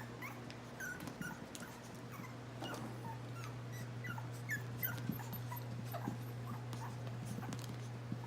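Chihuahua puppies whimpering, with many short high-pitched squeaks scattered throughout and a few light clicks, over a steady low hum.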